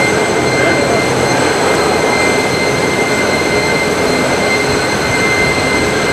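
Steady jet noise from parked Boeing 747 airliners: a constant high whine of several held tones over an even rushing noise, with no rise or fall.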